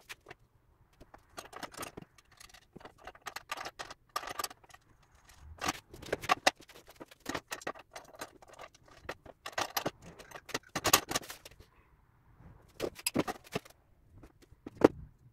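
Metal dethatcher parts and hardware being handled during assembly: irregular clinking, rattling and knocking, with the sharpest knocks about eleven seconds in and near the end.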